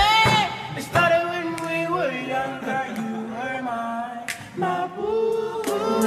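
Background music: several sung voices at once, holding notes and sliding between pitches, with no beat. It cuts off suddenly at the end.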